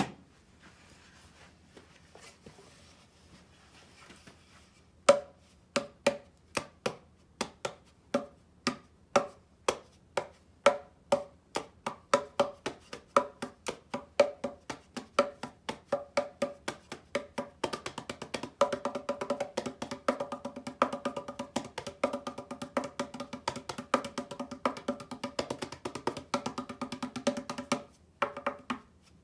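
Keyboard keys being typed: single keystrokes about two a second start about five seconds in, speed up, and turn into fast continuous typing over the second half before stopping suddenly near the end.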